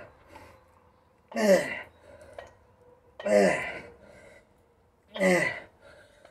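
A man's loud grunting exhales, three of them about two seconds apart, each falling in pitch, one with each rep of bent-over dumbbell rear delt raises.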